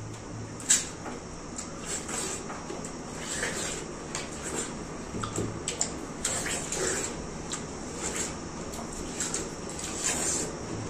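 Watermelon being eaten fast by two people: wet bites, slurping and chewing, with slices and rinds knocking against the table. A sharp knock comes about a second in.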